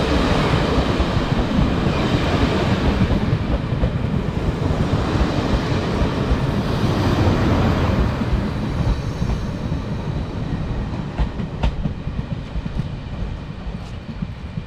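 Taiwan Railways Fu-Hsing express passenger coaches rolling past on the track in a dense, steady rumble that slowly fades from about halfway as the train pulls away, with a few sharp clicks near the end.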